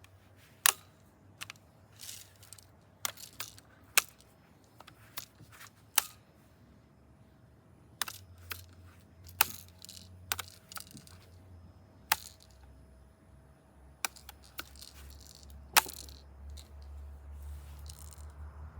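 A BB gun making a run of sharp clicks and snaps, about a dozen at irregular intervals. A low rumble builds near the end.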